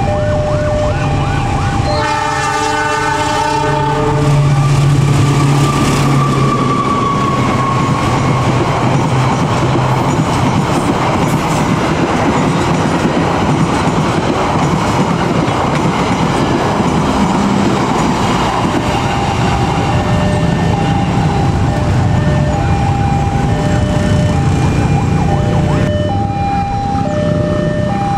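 A train blows its horn, one chord of about two seconds, then passes close by in a long rumble of engine and wheels. A railway level-crossing alarm rings in two alternating tones at the start and again from about two-thirds of the way through.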